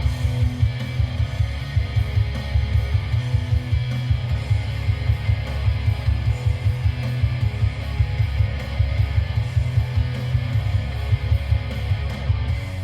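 Guitar-driven music with heavy, pulsing bass playing through a car stereo's Hertz Uno X165 speakers, heard inside the cabin on a phone microphone.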